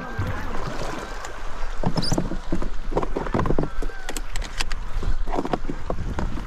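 A flock of Canada geese honking repeatedly in short calls, over a steady wash of river water and wind around a kayak.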